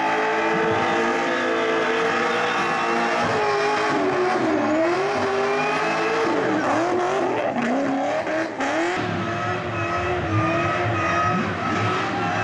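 Holden Commodore doing a burnout: the engine is held at high revs with its pitch wavering and dipping as the throttle is worked, over the rush of spinning rear tyres.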